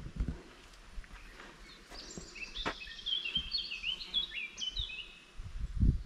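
A songbird singing a run of short, quick falling chirps from about two seconds in. Low thumps, the loudest near the end.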